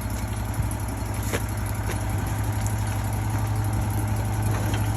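Wood-Mizer LT40 portable sawmill's engine idling steadily, with a few faint knocks about half a second to two seconds in.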